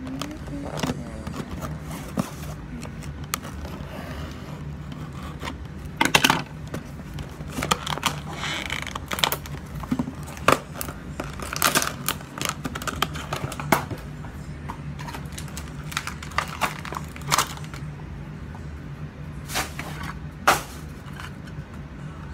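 Plastic toy packaging being cut with scissors and pulled open by hand: irregular crinkling, rustling and sharp clicks, over a steady low hum.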